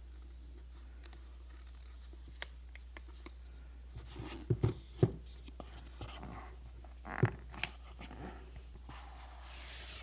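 Cardboard product box being opened and handled. A few short knocks and taps from about halfway in, then a longer scrape near the end.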